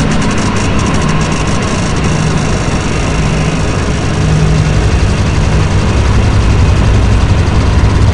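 Electronic soundtrack of dense, noisy sound design over a low droning rumble that grows heavier and a little louder about four seconds in.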